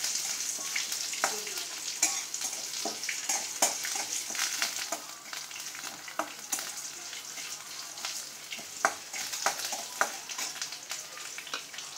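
Oil sizzling under a tempering of mustard seeds, dals, green chillies and curry leaves in an aluminium kadai, stirred with a spatula. Irregular sharp ticks run through the hiss as the spatula scrapes and taps the pan.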